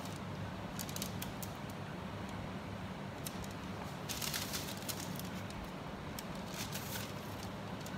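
Baking paper crinkling and rustling, with a few light clicks, as raw dough on it is handled and folded over pizza filling; the crinkling comes in two short spells, about four seconds in and again near the end. A steady low hum runs underneath.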